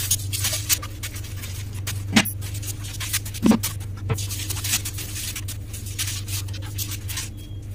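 Shelf liners being spread and handled inside empty kitchen wall cupboards: light rustling, scraping and tapping, with a few louder knocks about two, three and a half and four seconds in. A steady low hum runs underneath.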